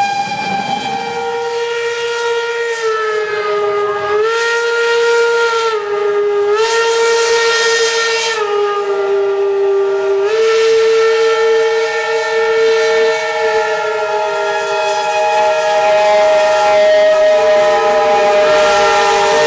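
Steam locomotive whistles blowing long and continuously, more than one pitch sounding at once, the main note stepping down and back up several times, over a hiss of steam.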